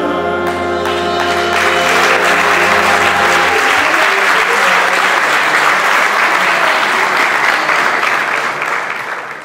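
A wind band with saxophones and brass holds its final chord, which stops about three and a half seconds in. An audience starts applauding about a second and a half in, keeps clapping steadily, and dies away near the end.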